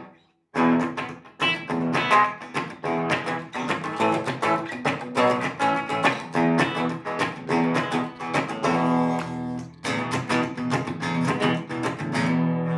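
Electric guitar, a Gibson Les Paul Standard, played through a Marshall JCM800 Studio valve amp set low for a playable volume, heard through a lapel mic in the room. Strummed chords and picked notes follow a half-second gap at the start, with a brief pause about ten seconds in and a chord left ringing at the end.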